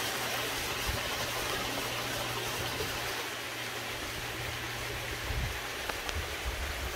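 Water splashing off a small water wheel turning in a shallow stream, with the brook running over rocks: a steady rushing, with a few soft low bumps near the end.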